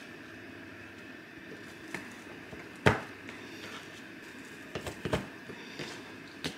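Kitchen knife chopping frozen-solid fish cake sheets on a plastic cutting board: about half a dozen sharp knocks spread over a few seconds, the loudest about three seconds in.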